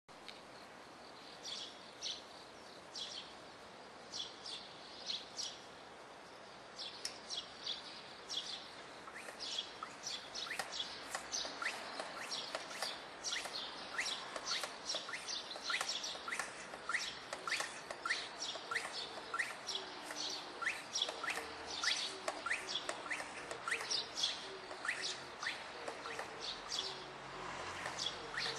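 Bull-headed shrike mimicking a car alarm: a long run of short, sharp high notes, spaced out at first and coming in a fast, steady stream from about ten seconds in.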